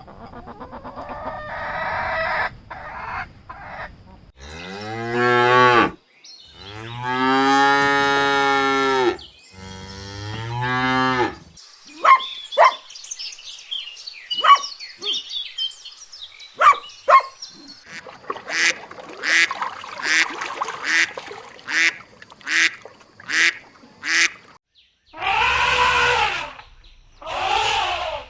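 Cattle mooing in three long, low calls, followed by geese honking in many short calls, including a quick run of about two honks a second.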